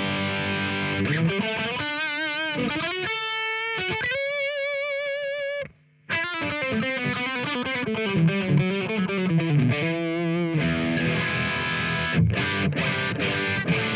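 Electric guitar played through the IK Multimedia X-Drive overdrive pedal via its cab-sim output: distorted chords, then single-note lines with wide vibrato and a long held note. The playing stops briefly about six seconds in, then resumes with more lines and chords near the end.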